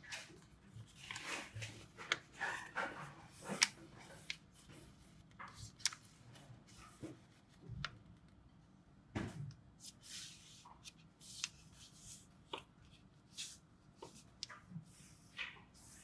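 Square origami paper rustling and crinkling as it is folded by hand, with many short, irregular swishes as fingers slide along and press the creases flat.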